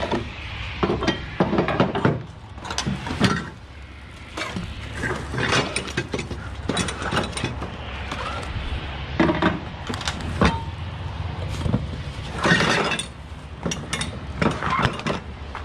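Gear and pawl of a flatbed trailer's cargo-strap winch ratcheting in irregular runs of metal clicks as a strap is worked, over a steady low rumble.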